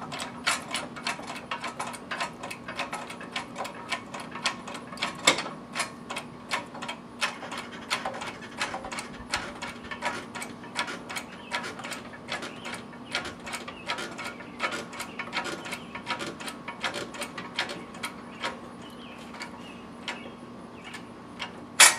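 Cub Cadet CHL 500 hydraulic mower lift being pumped up by its hand lever under a riding mower's weight: a steady run of metallic clicks, several a second, with one loud sharp clack near the end.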